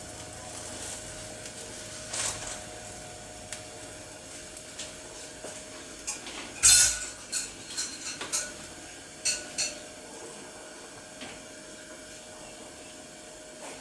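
Metal kitchen utensils clinking and knocking against a pan and dishes, with one loud clank a little before the middle and a few quicker knocks after it, over a steady hiss.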